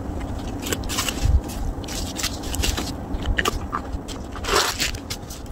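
Handling noise as a leather handbag is drawn out of its cotton dust bag and held: irregular fabric rustling and scraping with scattered light crinkles and clicks, and a longer rustle near the end.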